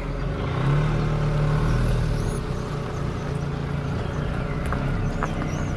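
Nissan March's engine revving up about half a second in, held high for a couple of seconds, then easing back to a steady run as the car pulls forward.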